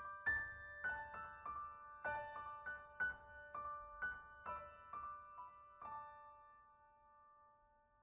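Soft solo piano background music: single notes and chords are struck and left to ring, and the last note dies away over the final two seconds.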